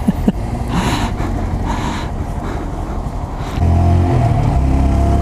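Honda Grom's 125 cc single-cylinder engine idling under road noise, with two short whooshes about one and two seconds in, then opening up loudly about three and a half seconds in to pull away. Its note steps down about a second later.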